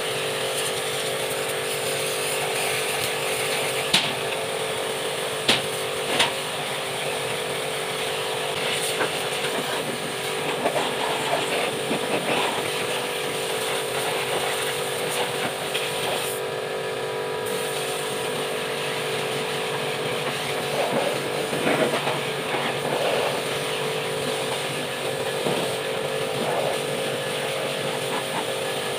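Pressure washer running with a steady motor hum while its water jet hisses against the fins of an engine radiator core, with a few short knocks.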